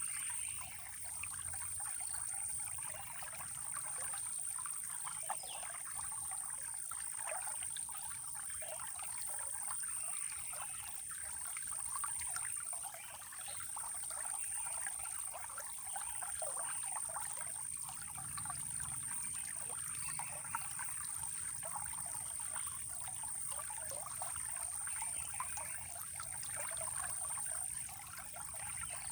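Small stream of running water trickling and gurgling steadily, with a constant thin high-pitched tone above it.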